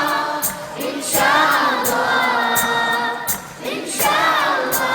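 Concert audience singing a chorus together over backing music with a steady beat.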